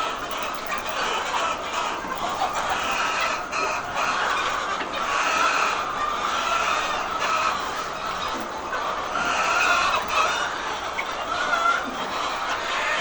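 A large flock of chickens clucking and calling all at once, many voices overlapping in a steady din.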